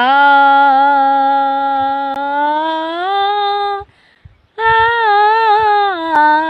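An elderly woman's voice humming a wordless tune through her hand cupped at her mouth. A long held note steps up in pitch near the end, then after a short break a second, wavering note begins.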